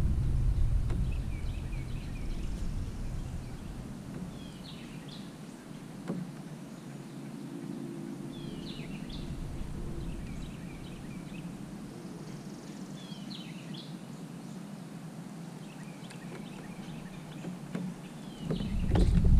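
Birds calling: short chirpy calls every second or two over a quiet background. A low rumble is heard at the start, fades, and comes back loudly near the end.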